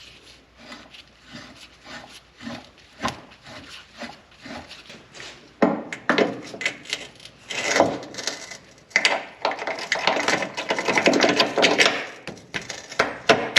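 Irregular rubbing and scraping of hand work on metal parts, with scattered knocks. It is light at first and grows denser and louder from about halfway through.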